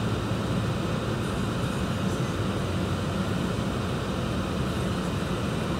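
Steady low hum of a car running, heard from inside the car's cabin.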